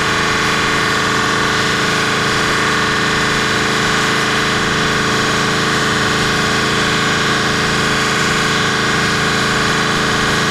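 Steady mechanical drone with a hiss, holding level without any revving: the BMW E39 M5's V8 idling on the chassis dyno between pulls, with the cell's cooling fan running.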